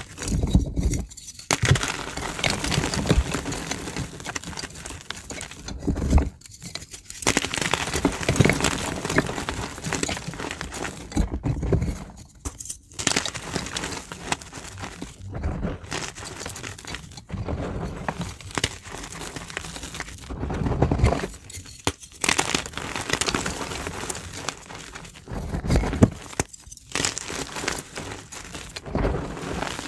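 Reformed gym chalk crushed and squeezed in bare hands: chunks crunching and crackling as they grind into powder, in runs broken by a few brief pauses.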